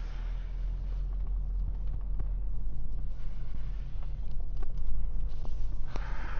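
Vehicle engine and road drone heard from inside the cabin, a steady low hum with scattered light clicks and rattles.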